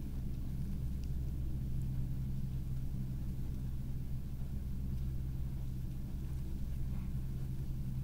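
Steady low droning hum, unchanging throughout, with a few faint ticks about a second, five seconds and seven seconds in.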